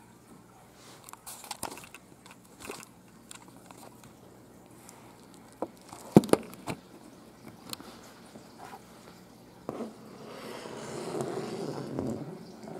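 Crinkling and rustling of a nylon down jacket with a cat inside it, with a few sharp knocks about six seconds in and a longer stretch of rustling near the end.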